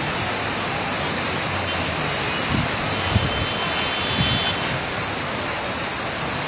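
Steady rushing of water on a flooded road, with traffic driving through it and a few faint low thumps partway through.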